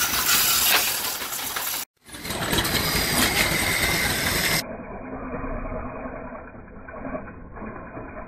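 Rubbing and rustling of the camera being handled, then, after a brief dropout about two seconds in, a wood lathe running as a hand-held tool works a spinning wooden spindle. The sound turns duller and quieter a little past the middle.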